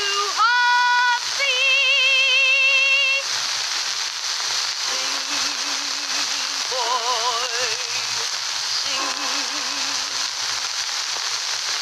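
A man singing long held notes with a strong, even vibrato, high notes first and lower ones after a pause, with gaps between phrases. A steady hiss runs underneath, typical of an old film soundtrack.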